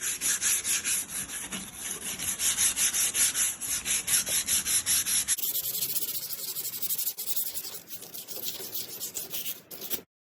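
Sandpaper scraping back and forth on a plastic car headlight lens in quick, rhythmic strokes, about five or six a second. About five seconds in, the strokes turn quieter, and they stop abruptly near the end.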